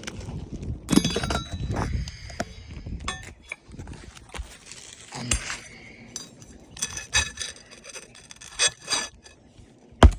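Metal roofing tool clinking and scraping against asphalt shingles and nails, with several ringing metallic clinks and a sharp knock near the end, as nails are worked loose to slip a new shingle in.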